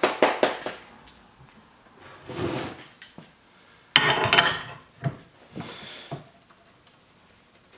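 Metal clanking and scraping as a large pipe wrench is fitted onto a steel bar clamped in a bench vise, to lever the bar into a bend. A quick run of clanks comes at the start, and a sharp clank followed by scraping about four seconds in.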